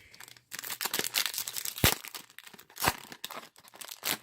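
A foil trading-card pack wrapper crinkling and being torn open by hand, a dense crackle with two sharp snaps about two and three seconds in.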